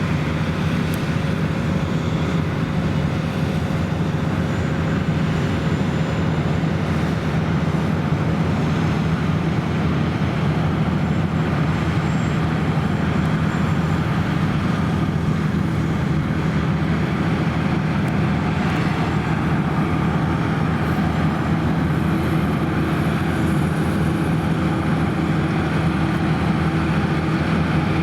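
Claas Lexion 580 Terra-Trac combine harvester running steadily while combining barley: a constant low engine hum under a wide, even machine noise with no change in pace.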